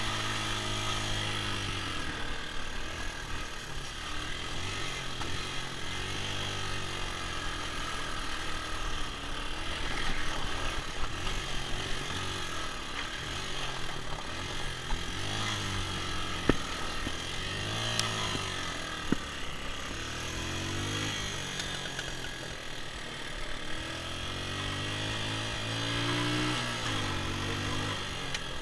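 Small dirt bike's engine running under the rider, its revs rising and falling in repeated surges, with the throttle not working well. There are a few sharp knocks about halfway through.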